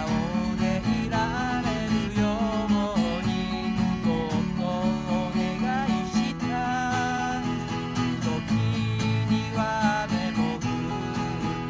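Steel-string acoustic guitar strummed steadily in a song accompaniment.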